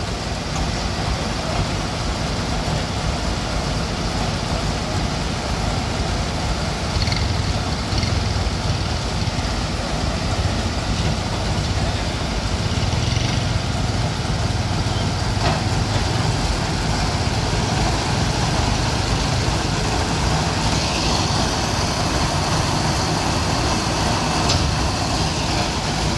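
Heavy diesel truck engine idling steadily, a low hum that swells slightly now and then.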